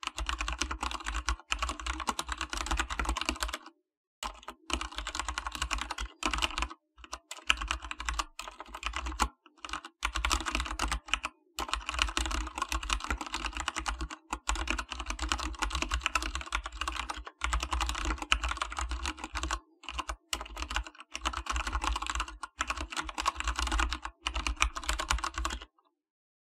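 Typing on an AKKO 3087SL mechanical keyboard: fast, dense keystroke clicks in runs of a few seconds with short pauses between them, stopping near the end.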